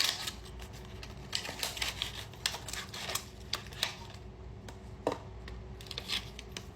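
Irregular small clicks and rattles, several a second, from a hidden-camera detector kit's box and plastic packaging being opened and its parts handled.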